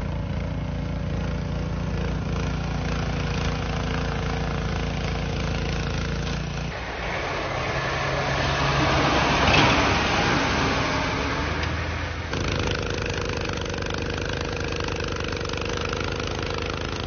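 An engine running steadily; then, about seven seconds in, a snowplow truck pushing snow with its blade, a rush of noise that swells and fades as it passes; then, near the end, a snowblower's small engine running steadily as it throws snow.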